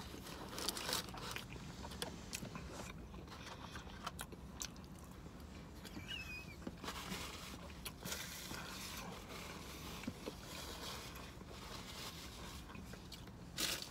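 Soft chewing and mouth sounds of a person eating a meatball sub: scattered faint smacks and clicks over a low steady hum.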